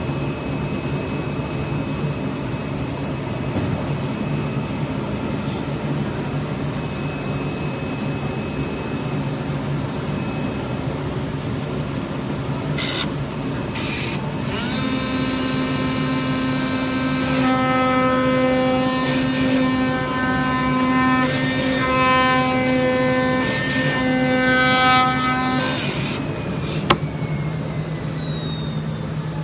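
CNC knife cutting machine working on polyester fibre acoustic board: a steady low machine hum throughout. About halfway through a pitched motor whine joins and pulses on and off repeatedly as the cutting head moves, then stops, followed by a single sharp click.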